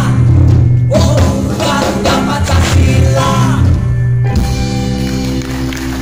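Live rock band with electric guitars, bass and drums, a man singing over them. About four seconds in the singing and drumming stop and the band holds a final chord.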